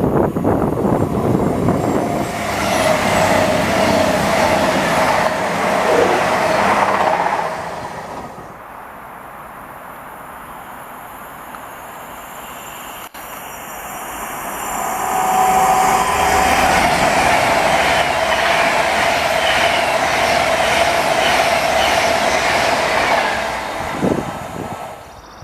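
A train passing on the rails, loud for about eight seconds, easing off, then loud again for another eight or nine seconds, with a steady whine running through both loud stretches.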